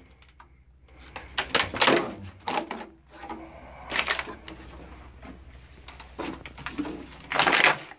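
Irregular footsteps crunching and scuffing over rubble and debris on a concrete floor, with a few louder scrapes, the loudest near the end, over a faint low hum.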